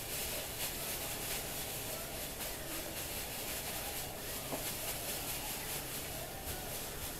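Hot oil in a deep fryer sizzling and crackling steadily as whole catfish fry.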